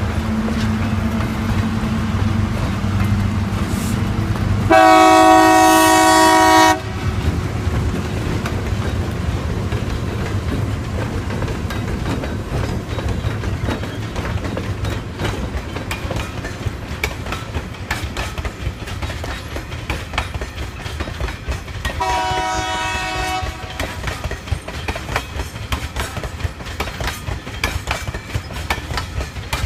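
Diesel-electric freight locomotive of an ore train sounding its horn twice: a loud two-second blast about five seconds in and a shorter one near the end. Between them the wagons roll by with a steady rumble and clickety-clack over the rail joints.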